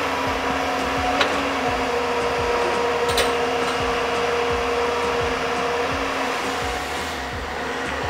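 JCB tracked excavator's diesel engine running steadily under load, a loud even hum with a few steady tones in it. Two sharp clicks stand out, about one and three seconds in.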